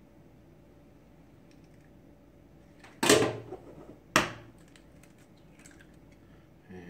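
Eggs being cracked for a bowl: two sharp knocks a little over a second apart, eggshell struck against a hard edge, followed by faint small clicks of the shell being pulled open.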